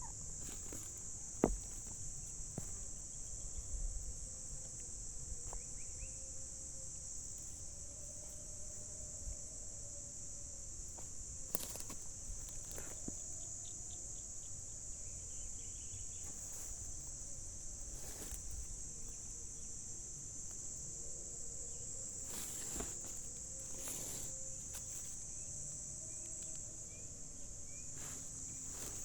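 Steady high-pitched chorus of chirring insects, with scattered soft clicks and knocks.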